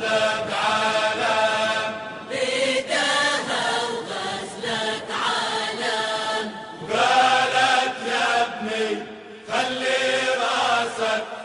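A singing voice in a chant-like song, holding long notes that bend in pitch, phrase after phrase with short pauses between them.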